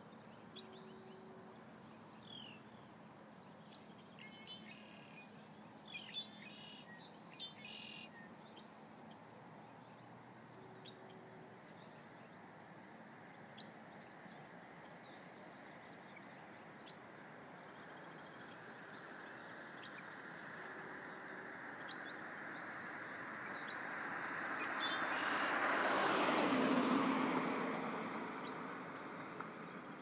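Small birds giving a few short chirps and twitters over a steady outdoor hiss. In the second half a vehicle comes along the road: a broad tyre-and-engine rush that builds slowly, is loudest a few seconds before the end, then fades.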